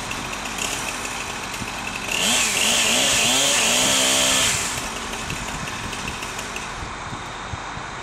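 Chainsaw revved up to full throttle about two seconds in, its pitch rising and then holding high for about two and a half seconds before it drops back to a low idle.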